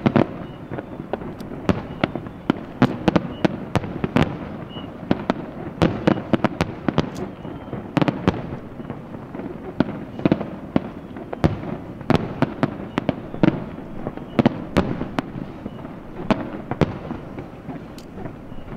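Aerial fireworks shells bursting in quick, irregular succession: many sharp bangs and crackles over a continuous rumble, thinning a little near the end.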